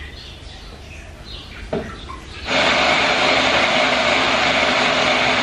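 Small electric mini food chopper starts about two and a half seconds in and runs with a steady whirr. It is grinding shallots, garlic, candlenuts, ginger, galangal and onion with a little oil into a rendang spice paste.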